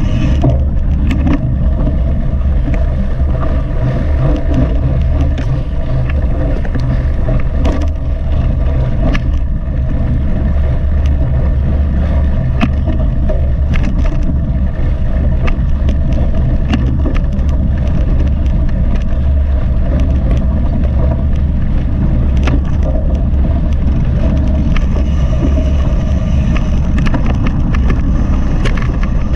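Mountain bike ridden at race pace, heard through a bike- or helmet-mounted action camera: a loud, steady wind rumble on the microphone with frequent short rattles and clicks from the bike over rough ground.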